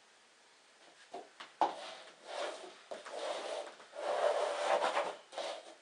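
Small cups slid and shuffled by hand across a wooden floor: irregular scraping and rubbing with a few light knocks, starting about a second in.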